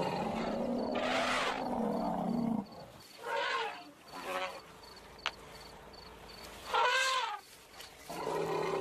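African elephants calling in excitement around a newly born calf: a long, deep rumbling roar that rises and falls, then several shorter, higher calls, the loudest about seven seconds in.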